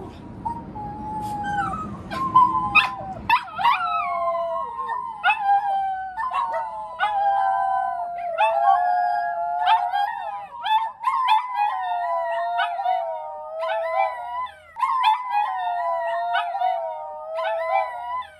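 Several poodles howling together in chorus, two or more long, wavering howls overlapping, new voices joining in from a few seconds in.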